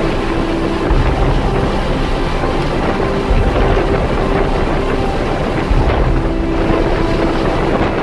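Wind buffeting the microphone in gusts every couple of seconds over the steady rush of a motorboat under way, its engine and churning wake running underneath.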